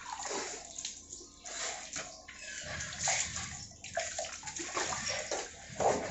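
Water splashing and sloshing as soap lather is rinsed off a face with handfuls of water, then water handled with a plastic dipper at a bucket and barrel.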